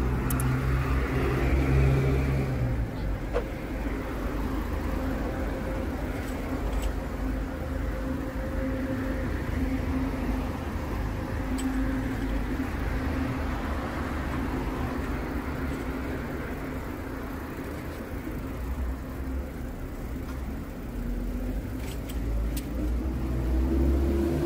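City street traffic: cars driving past with a low engine rumble, loudest at the start and again near the end, where an engine rises in pitch as it pulls away.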